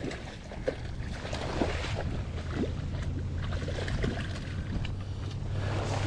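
A hooked rainbow trout thrashing and splashing at the water's surface near the bank, in short irregular splashes, over a low rumble of wind on the microphone.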